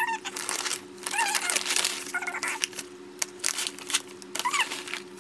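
Plastic cereal packet crinkling and rustling as it is pulled open and handled, with a cat meowing briefly about four times. A faint steady low hum runs underneath.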